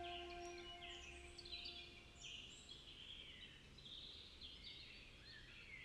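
Birds chirping and singing faintly, many short quick notes, while a soft held music chord fades out over the first two seconds.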